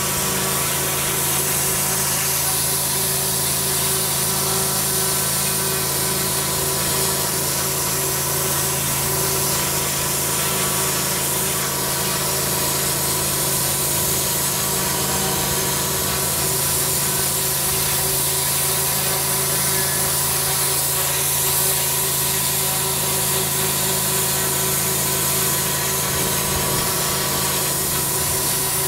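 Pressure washer running steadily, its twin-headed turbo lance blasting a jet onto block paving: a constant hiss of spray on the blocks over a steady machine hum.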